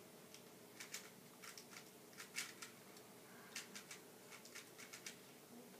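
Quick, irregular clicking of a plastic Rubik's cube as its layers are turned one-handed, several clicks a second, over a faint room hum.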